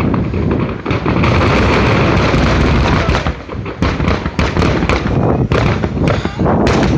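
Aerial fireworks going off in a rapid barrage, many booms and crackling bursts overlapping with hardly a gap, with a brief lull about halfway through before the barrage resumes; the dense run of shells is typical of a finale.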